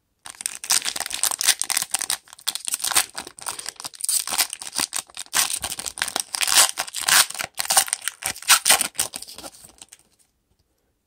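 Foil trading card pack wrapper being torn open and crinkled by hand, a dense run of rapid crackling that stops abruptly about ten seconds in.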